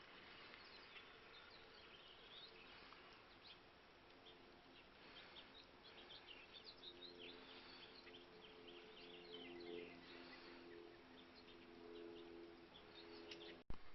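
Faint birds chirping in short repeated calls. A low steady hum of several tones joins about a third of the way in, and a sharp click is heard just before the end.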